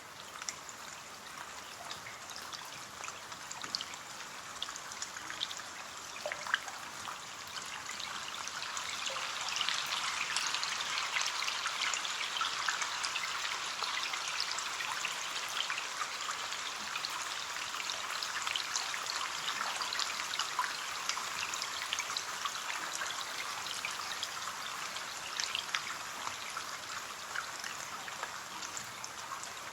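Rain falling on a window: a steady hiss with many separate drop taps, growing heavier about a third of the way in and then holding steady.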